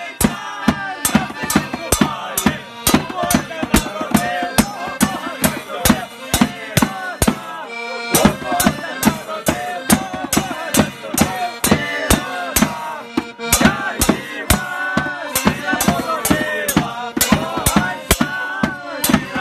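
Music with a steady drum beat, about two beats a second, and a melody over it.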